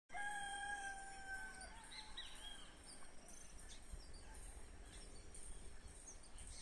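Faint outdoor ambience with birds calling: a long steady whistled note for the first second and a half, then a few short chirps about two seconds in, over a low rumble of wind.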